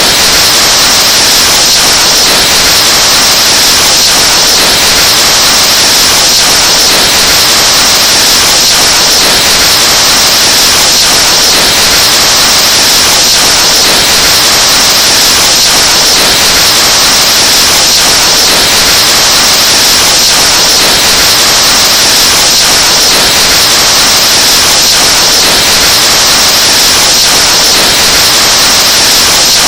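Breath blown hard and continuously into a microphone, overdriven into a harsh hiss of static-like noise. It is very loud, steady and unbroken, and brightest in the high range.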